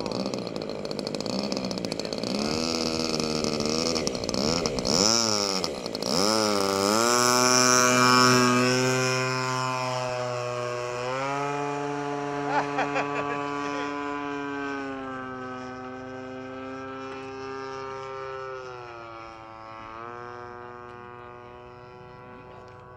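Radio-controlled Cub model airplane's engine. Its pitch swings up and down a few times, then it runs up to full throttle for the takeoff. The steady high drone then grows fainter as the plane climbs away, its pitch shifting slightly.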